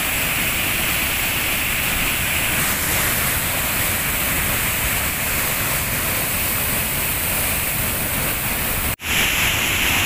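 Waterfall: a heavy mass of water pouring over rock and crashing into a plunge pool, a loud, steady rush of water. It cuts out for a moment about nine seconds in.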